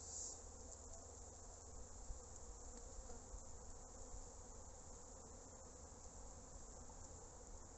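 Honeybees buzzing faintly and steadily around a hive opened in winter for a varroa drip treatment.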